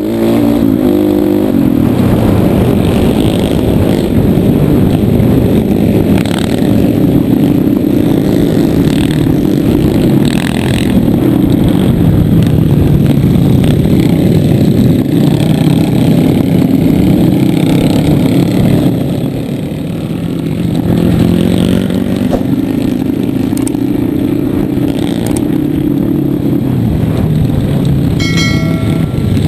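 Trail motorcycle engine heard close up from the rider's own bike on a dirt track, its pitch rising and falling with the throttle, with other trail bikes riding with it. A short electronic chime sounds near the end.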